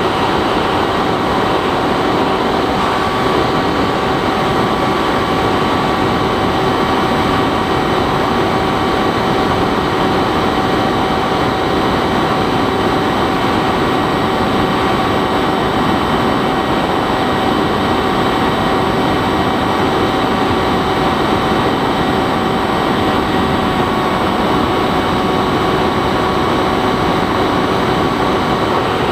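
Bixler 3 model plane's electric motor and propeller running steadily in flight, a constant drone with a steady whine over a rush of wind.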